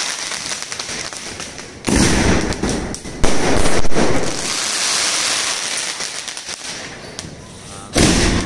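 Sony Azzaro sky-shot cake, which fires its 40 shots four at a time, launching shells that burst overhead: three loud bangs, about 2 s in, about 3 s in and near the end, with the crackle of the bursting stars between them.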